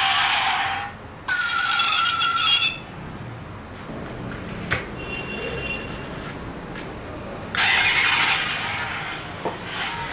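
Die-cast pullback toy car's built-in electronic engine sound, cutting off just under a second in, then a short electronic tone sequence from its sound module. After a quieter stretch with a light click, a loud whirring returns about two and a half seconds before the end as the pulled-back car is released and runs off.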